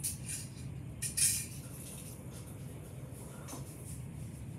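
Die-cast Hot Wheels toy cars being handled: a few light clicks and scrapes of small metal objects, the loudest about a second in, over a steady low hum.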